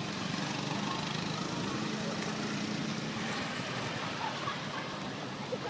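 Steady low hum like an idling engine running in the background, with a few faint short chirps near the end.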